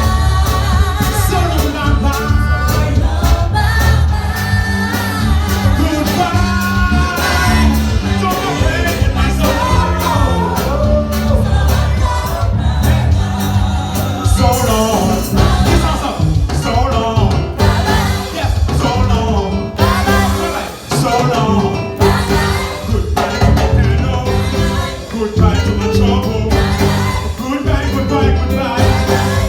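Gospel song with voices singing over a band, carried by a strong bass line and a steady beat.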